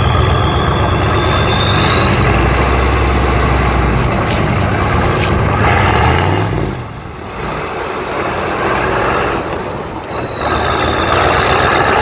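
Turbocharger whistle on a Ford 7.3 IDI V8 diesel under acceleration, over the engine running. The high whine climbs over the first few seconds and shoots higher about six seconds in. The engine note then drops twice, about seven and ten seconds in, as the whine falls away, and the whine rises again near the end.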